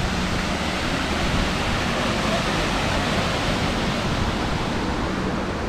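Steady rush of water from a fast-flowing forest stream and waterfall.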